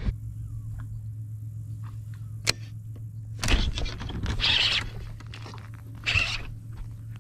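A steady low electric hum from a bass boat's onboard electric motor, with one sharp click about two and a half seconds in and two short rushes of noise in the second half.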